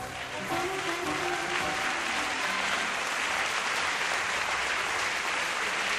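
Audience applauding steadily, while the slow foxtrot music fades out in the first two or three seconds.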